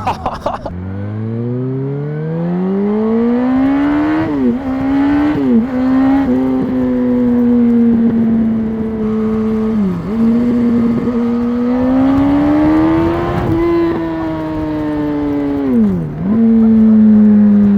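Stock-exhaust 2006 Yamaha R1 inline-four engine under way, pulling up through the gears: the pitch climbs and drops sharply at upshifts about four and a half and five and a half seconds in. It then runs at a fairly steady pitch with brief throttle lifts, one near the middle and one near the end.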